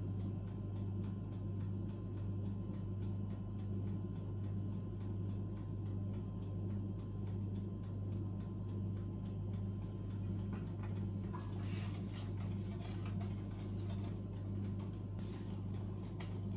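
Light, regular ticking of a metal mesh sieve being tapped as flour is sifted into a bowl, over a steady low electrical hum.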